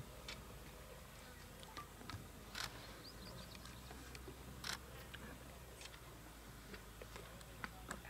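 Faint outdoor background broken by a handful of sharp, scattered clicks, the loudest about two and a half and four and a half seconds in.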